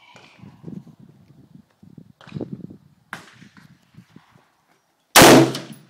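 A single AR-15 rifle shot about five seconds in: one sharp, loud crack that fades out over about half a second.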